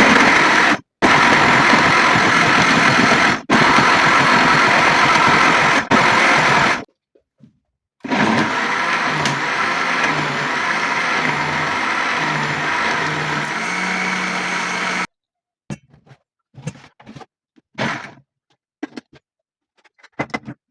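Electric blender running in short runs with three brief stops, then running steadily for about seven seconds, rising slightly in pitch near the end before it cuts off. A few faint taps and knocks follow.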